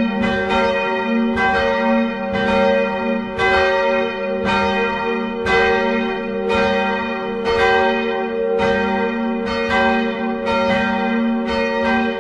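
Church bells pealing, with a stroke about every two-thirds of a second and each bell's tone ringing on into the next stroke.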